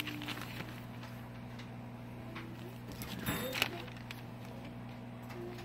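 Coupon-insert paper pages rustling and crinkling as they are handled and a page is turned, with the loudest crinkle about three seconds in, over a steady low hum.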